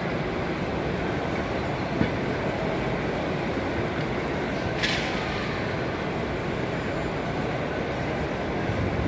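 Model trains running on an exhibition layout amid the steady hubbub of a busy exhibition hall. There is a short click about two seconds in and a brief hiss about five seconds in.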